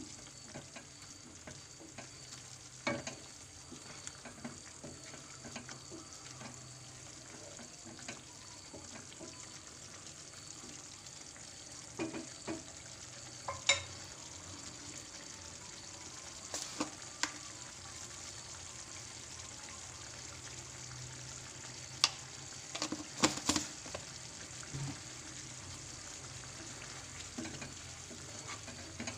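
Chicken curry simmering with a steady low sizzle in a ceramic-coated frying pan, stirred with a wooden spatula that scrapes through the thick sauce and knocks sharply against the pan now and then, in clusters about a third of the way in and again about three quarters through.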